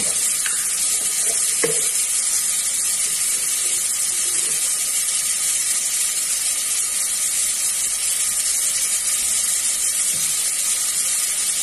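Chicken, tomato, onion and garlic sizzling steadily in a stockpot as they are sautéed. There is one brief knock about two seconds in.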